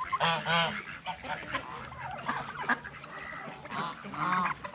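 Geese honking: two loud honks just after the start, quieter calling through the middle, and another run of honks near the end.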